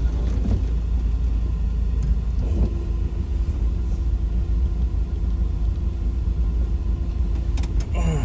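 1984 Volkswagen Westfalia camper van's flat-four engine running, heard from inside the cab as a steady low rumble. A steady hum joins about three seconds in and drops out near the end. The van is struggling for grip on a muddy, slippery slope.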